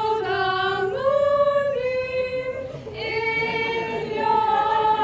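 A small group of women singing a cappella in harmony, holding long drawn-out notes, with a brief break just before a final sustained note.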